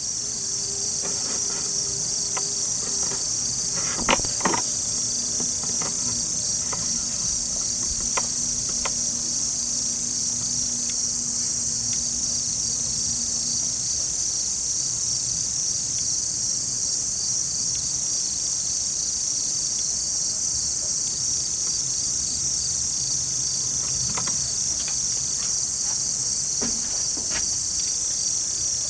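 Dense chorus of late-summer insects, a steady high-pitched pulsing trill. A couple of sharp knocks sound about four seconds in.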